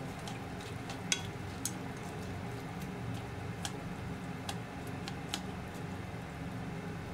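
Wooden chopsticks clicking against a nonstick pot while sliced onions are spread through the sauce. There are several scattered light clicks, the loudest about a second in, over a steady low hum.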